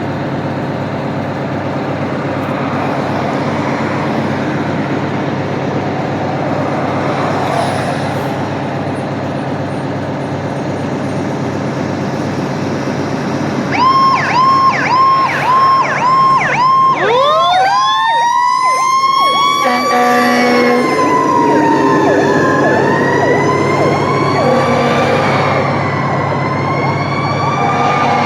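A fire engine's diesel engine runs steadily. About fourteen seconds in, its sirens start: a quick string of short repeated blips, then a siren winding up in a long rising whine, then siren tones wailing up and down, mixed with short low blasts.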